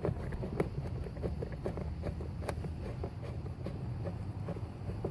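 Screwdriver driving a screw into the bottom edge of a car door's trim panel: a string of small irregular clicks and ticks, about three or four a second, over a steady low rumble.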